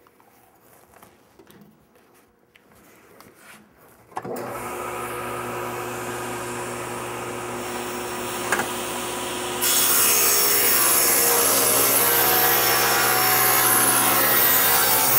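Table saw switched on about four seconds in, its motor spinning up to a steady hum. A few seconds later the blade enters a particle board panel, ripping a strip off it with a much louder, steady cutting noise that stops just before the end.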